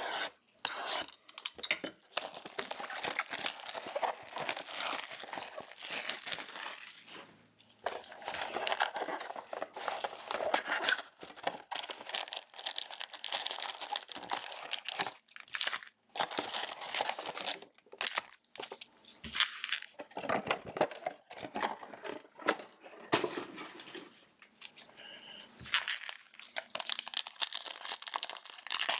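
Plastic wrapping of trading card boxes and packs being torn open and crumpled by hand: long spells of crinkling and tearing with short pauses between them.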